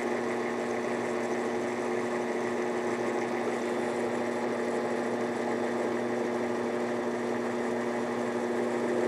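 Mini lathe running at a steady speed, its motor and drive giving a steady hum, while the turning tool takes a very light cut on a spinning aluminum part.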